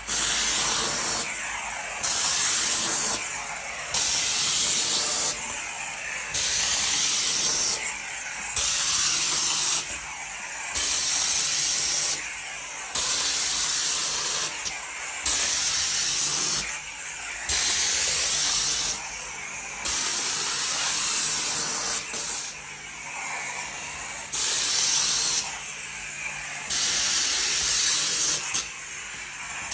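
Shark steam mop hissing in regular pulses, a burst of steam about every two seconds, with a quieter rushing sound between bursts.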